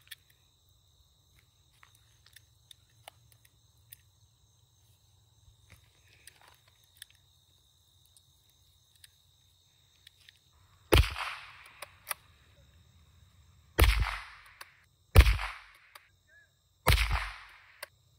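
Faint clicks of .22 LR cartridges being pressed into the Rossi RB22's box magazine. Then four shots from the bolt-action .22 rifle firing CCI Mini-Mag rounds, starting about eleven seconds in and spaced about one and a half to three seconds apart, each with a short echo.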